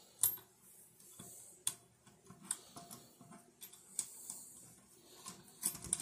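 Irregular sharp clicks and light knocks of a mic adapter module being handled and fitted onto the joint of a monitor arm, loudest just after the start and again near the end.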